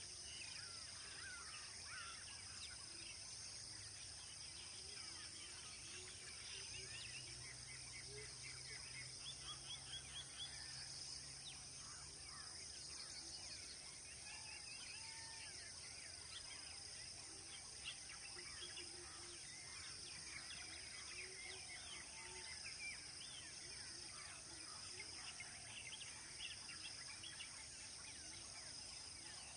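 Quiet natural ambience: many birds chirping and calling over a steady, high-pitched insect drone.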